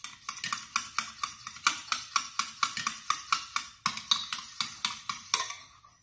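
A stirrer clinking and scraping round a small stainless steel pot as an oily liquid mixture is stirred, in quick regular strokes of about four a second.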